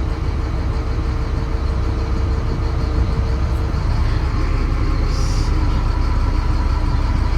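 Caterpillar wheel loader's diesel engine running steadily while the bucket hydraulics are worked. A steady tone gives way to a higher one about halfway through, and there is a brief hiss about five seconds in.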